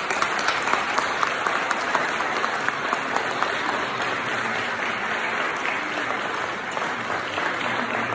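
Congregation applauding: dense, steady hand clapping that eases off slightly near the end.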